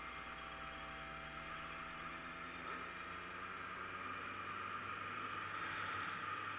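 Steady muffled wind and road rush from a camera on a moving motorcycle, with the bike's inline-four engine faintly running underneath; the rush grows a little louder about two-thirds of the way through.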